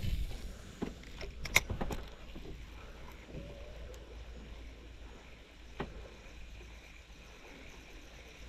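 A spinning rod being cast and its reel handled: a few sharp clicks between about one and two seconds in, one more faint click near six seconds, then a quiet stretch over a steady low rumble.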